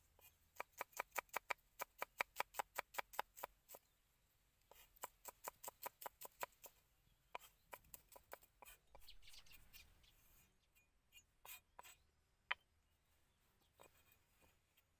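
A cleaver chopping garlic cloves on a wooden chopping block: two runs of quick, even knocks, about six a second, then a brief scraping sound and a few scattered knocks.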